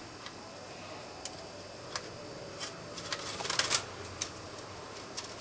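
Scattered light clicks and small rattles of a Phillips screwdriver working small screws out of a hard drive enclosure, with a brief flurry of clicks about three and a half seconds in.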